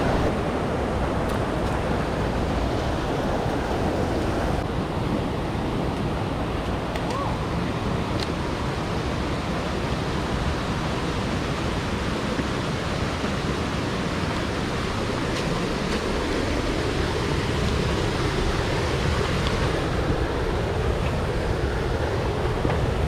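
Rushing water of a rain-swollen mountain stream, a steady noise.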